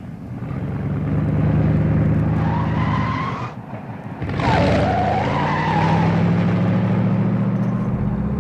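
Pontiac Trans Am's engine running steadily, then tyres squealing about four seconds in as the car accelerates, the engine carrying on after.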